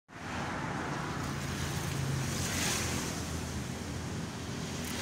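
Steady outdoor background noise: a low rumble and hiss of street traffic, with wind buffeting the microphone.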